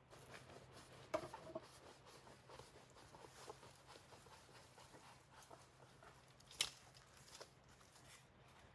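Faint handling sounds: light rustling and small taps, with a short cluster of clicks about a second in and a single sharper click about two-thirds of the way through.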